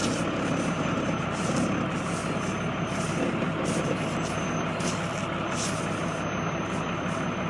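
Steady vehicle noise: a car's engine and road noise while driving.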